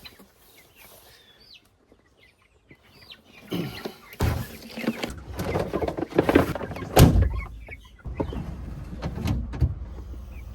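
A few faint chick peeps, then loud clattering and knocking with one sharp thunk about seven seconds in, as the meat birds are caught and handled. A steady low rumble carries on after it.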